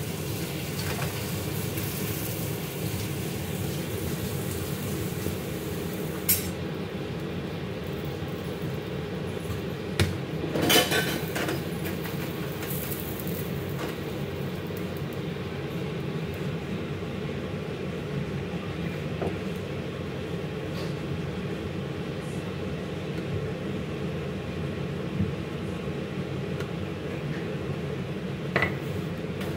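Kitchen cookware and utensils clinking and knocking a handful of times, the loudest cluster about ten seconds in, over a steady low hum.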